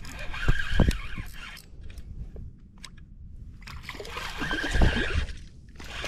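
A hooked black drum splashing and thrashing at the water's surface as it is reeled to the bank, in two bouts: one starting just after the beginning and another about four seconds in.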